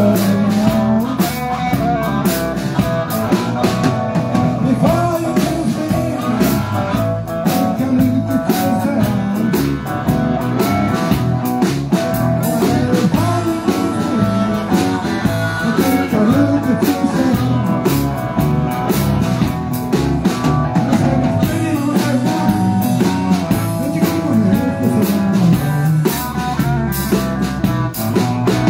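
Live blues band playing, with electric guitars and a drum kit keeping a steady beat.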